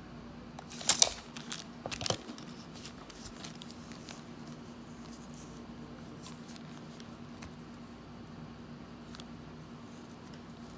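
Handling noise from a headphone ear cushion and plastic packaging: two short clusters of crinkling and clicking about one and two seconds in, then faint scattered ticks, over a steady low hum.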